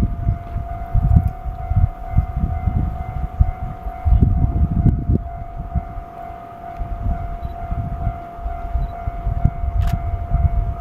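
Japanese railway level-crossing warning alarm sounding a steady high tone, over irregular low rumbling.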